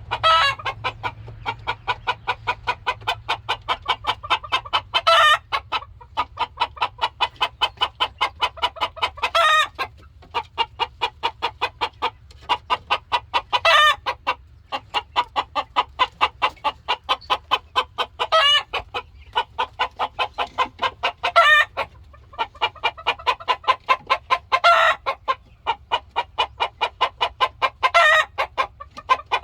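A rooster clucking rapidly and continuously, about seven clucks a second, with a louder, longer call breaking in every few seconds.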